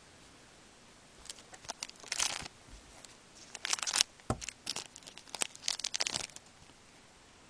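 A plastic wrapper from a pack of hockey trading cards being torn and crinkled, in several short crinkly bursts through the middle of the stretch. A single soft knock comes about four seconds in.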